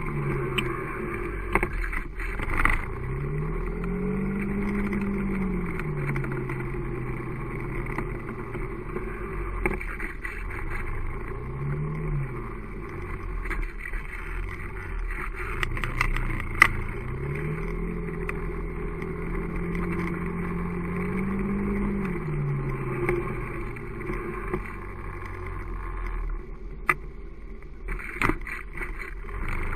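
Small motorcycle engine speeding up and easing off again and again, its pitch rising, holding and falling with each pull of the throttle, with scattered clicks and knocks as it rides over the road.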